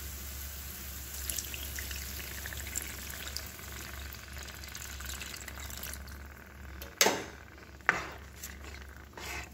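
Chicken broth poured from a can into a hot skillet of sautéing vegetables, running and sizzling in the pan. Near the end, two sharp knocks about a second apart.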